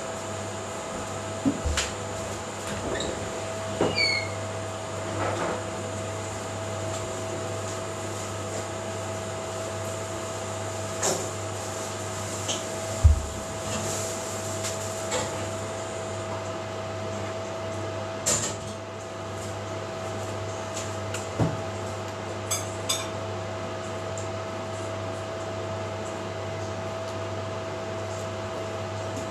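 A steady machine hum, with a few soft knocks and clicks and a couple of brief high squeaks scattered through it.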